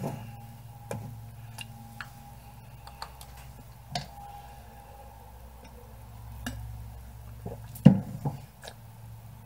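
Light clicks and taps of supplement bottles and containers being handled on a counter, roughly once a second, with a louder knock near the end, over a faint steady low hum.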